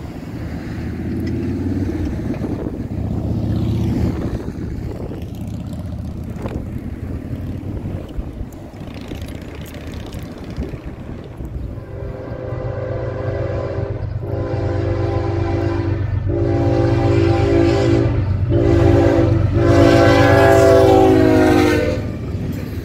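A train approaches with a steady low rumble, then its locomotive sounds its horn in about five blasts starting about halfway in. The blasts are long except a short one near the end.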